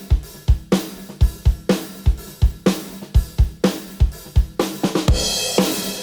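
Recorded drum kit playing a steady beat, with kick, snare and hi-hat, and a crash cymbal washing out about a second before the end. The drums are played back through an SSL-style VCA bus compressor, the STAM Audio SA4000.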